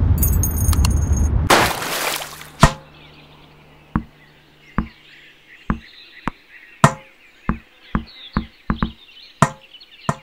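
Designed sound effects: a loud, dense noise with high ringing tones ends in a short noisy burst about two seconds in. Then comes a sparse run of about a dozen sharp, irregularly spaced knocks over a faint, high chittering background.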